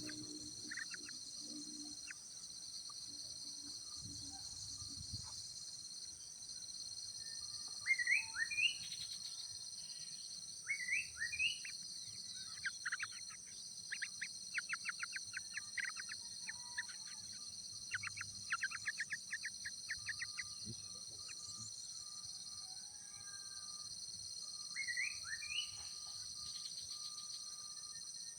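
Birds calling: short rising chirps, with a quick run of many chirps in the middle, over a steady high-pitched insect drone.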